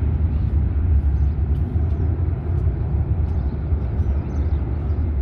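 Twin-engine jet airliner climbing away after takeoff, heard as a steady low rumble.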